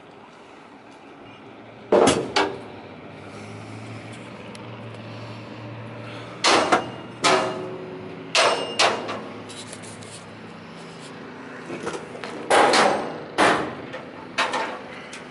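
A series of loud metal clanks and bangs, about nine, several coming in pairs, each with a short ringing tail. A low hum sounds briefly about four seconds in.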